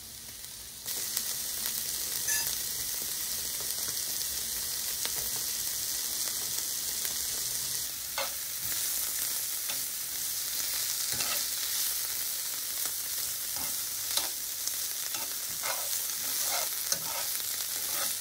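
Marinated shiitake mushroom strips sizzling steadily as they sauté in a nonstick frying pan, the sizzle starting about a second in. Short scrapes and taps come from a metal utensil stirring the mushrooms against the pan.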